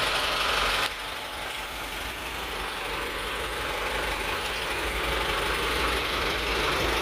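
A truck's diesel engine idling steadily, a low rumble under a broad hiss. The sound drops suddenly about a second in, then slowly builds back up.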